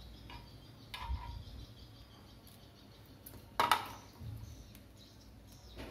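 A few handling knocks from monitor stand parts being fitted: a soft knock about a second in and a sharper clack about three and a half seconds in.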